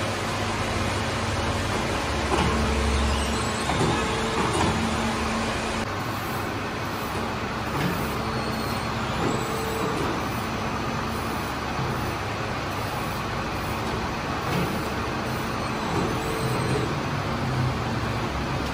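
Steady noise of bakery machinery running: a continuous rushing hiss with a faint hum that comes and goes.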